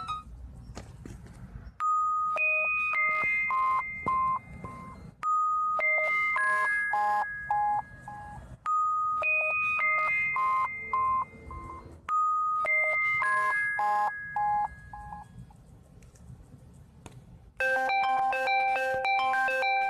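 LG K7 smartphone playing a built-in ringtone: a short chime melody of a dozen or so clear notes, a long note and then quicker shorter ones, repeated four times about every three and a half seconds. Near the end a different, busier tone begins.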